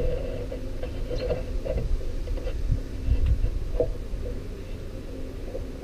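Light wooden knocks and taps as biscuit-jointed oak segments are pushed together on a wooden workbench, over a steady low hum.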